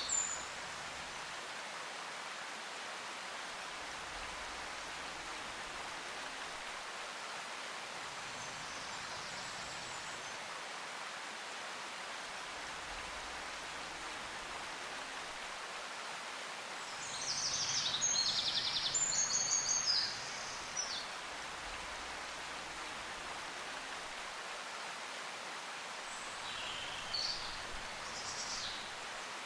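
Steady outdoor ambient hiss with birds chirping in short, quick phrases, loudest a little past the middle and faintly again near the end.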